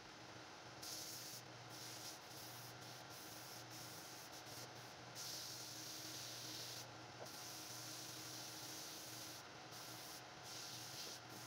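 Hand sanding of a wooden stair baluster spinning on a wood lathe: sandpaper hisses against the turning wood in stretches of a second or two, loudest about five to seven seconds in, over the steady hum of the lathe motor.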